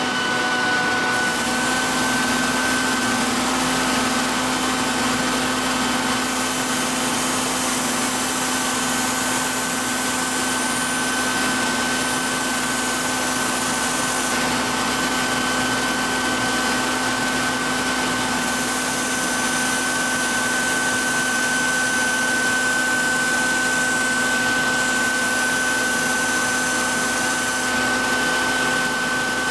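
Belt knife-sharpening machine on a 400-grit belt and its dust-collecting vacuum running together: a steady motor hum and whine under a hiss that swells in stretches. A deeper hum sets in about a second in.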